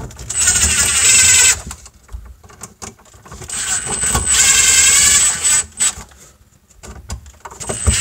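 Makita 18V cordless impact driver running in two bursts, about a second and then about two seconds long, driving the mounting screws of an electrical outlet into its box.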